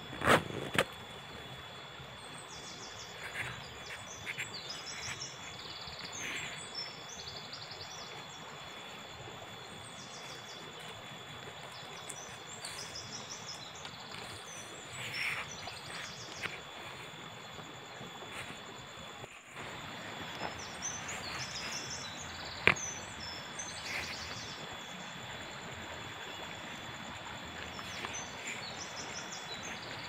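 Forest ambience: birds chirping in repeated short bursts over a steady outdoor hiss, with a thin high-pitched tone that stops about two-thirds of the way through. A few sharp knocks and rustles from camping gear being handled, the loudest near the start.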